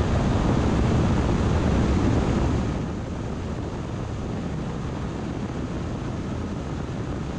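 Wind and road noise from a vehicle driving on an asphalt road: a steady rush, louder for the first couple of seconds and then settling lower.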